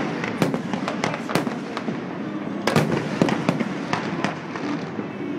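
Fireworks display: aerial shells bursting in a rapid, irregular string of sharp bangs, several a second, over a continuous dense din of smaller bursts.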